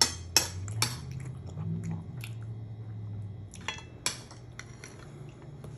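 Ceramic dishes clinking and knocking as a bowl and plate are handled at the table: a series of sharp clinks, loudest near the start and again about four seconds in.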